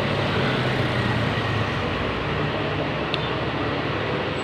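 Heavy vehicle engine running steadily with road noise, a low hum under an even rush.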